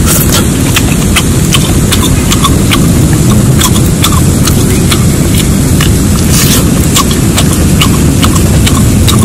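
Wind buffeting the microphone as a steady, loud low rumble, with scattered sharp crackles from a wood fire.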